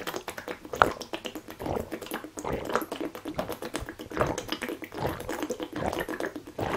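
A person gulping a drink straight from a large plastic bottle tipped up to the mouth: a run of swallows, about one or two a second, with the liquid glugging in the bottle.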